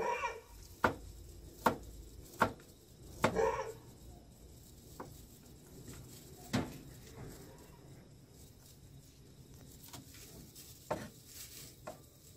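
A series of sharp knocks and clacks, about a dozen, spaced irregularly, with a couple of short brighter clatters near the start and about three seconds in.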